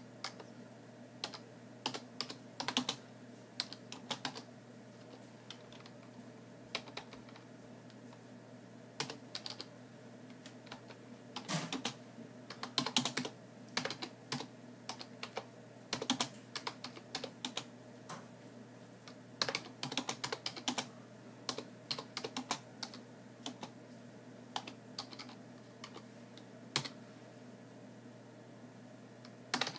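Typing on a computer keyboard: irregular runs of keystrokes broken by short pauses, over a steady low hum.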